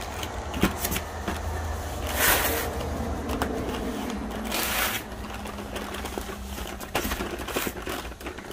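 Cardboard firework cases being handled and moved: scattered knocks, scrapes and rustling, with two brief louder rustles about two and four and a half seconds in, over a steady low hum.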